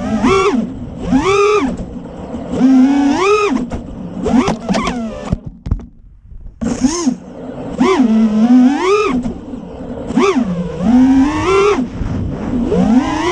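A quadcopter's four T-Motor F40 Pro IV 2400KV brushless motors spinning HQ Ethix P3 props, their whine sweeping up and down in pitch with repeated throttle punches, about one a second. Around the middle the whine nearly stops for about a second as the throttle is cut, then climbs again.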